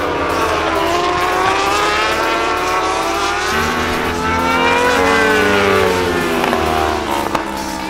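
Racing motorcycles at high revs passing by, the engine pitch climbing and then falling away as they go past. A second, deeper engine note joins about three and a half seconds in, and there are a couple of sharp cracks near the end.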